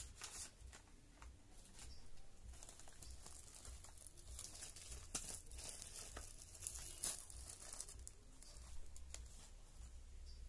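Faint rustling and crinkling of the wrapping around a gift bouquet as it is handled, with scattered small clicks.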